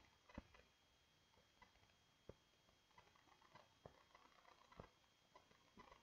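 Near silence: faint room tone with a thin steady high whine and a few scattered, irregular soft clicks.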